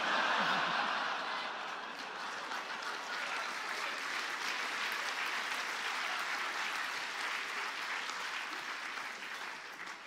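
Audience applauding and laughing at a punchline: a burst of clapping that starts suddenly, is loudest at first and dies away near the end.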